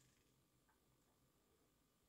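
Near silence: the SG90 micro servos hold the robot arm still between moves.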